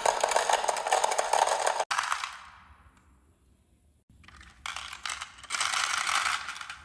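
Marbles clattering and rolling down a marble run track, a dense rapid rattle of many small clicks. It dies away about two seconds in, then starts again and grows loud near the end.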